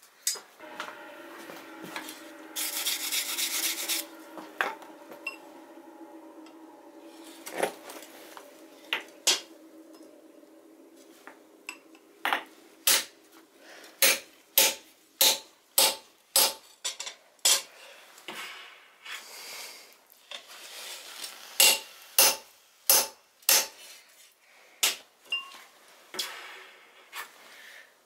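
Hammer blows on a hand punch driving a hole through a red-hot steel bar on an anvil. From about twelve seconds in come runs of sharp metallic strikes, one or two a second. Before them are steady humming tones and a brief loud hiss.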